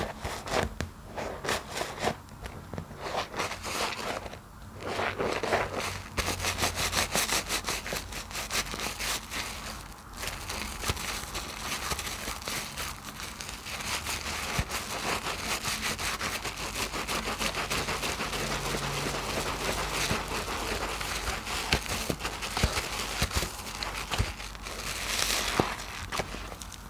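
Kitchen scrub sponges squeezed and squished by hand in thick soap foam: wet squelching with dense crackling of the suds. At first it comes as separate squeezes, then runs almost continuously from about a quarter of the way in.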